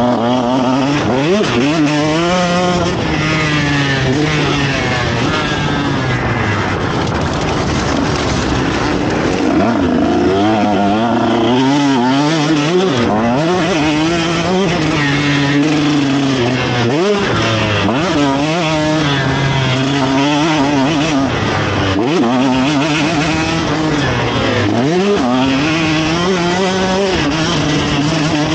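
KTM 150 SX's single-cylinder two-stroke engine under race load, heard from on the bike, its pitch climbing and dropping back over and over as the throttle is opened and rolled off around the track.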